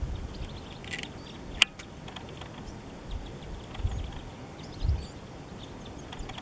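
Small wild birds giving scattered short chirps, with one sharp click about a second and a half in and a few low thumps.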